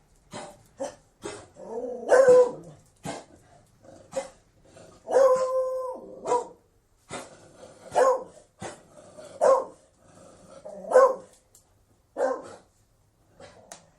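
Beagle barking about five times, with one longer drawn-out bay about five seconds in, and short sharp sounds in between the barks.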